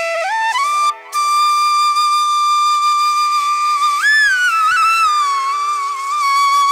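Flute music: a slow melody of long held notes that slide up and down, over a steady drone. It steps up to a high note in the first second, holds it, then bends up and back down a little after the midpoint.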